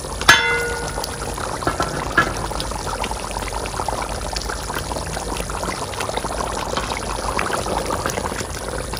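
A metal pot lid clanks once and rings briefly as it comes off, then a big pot of beef curry bubbles steadily at a boil, with a dense run of small pops as the gravy reduces.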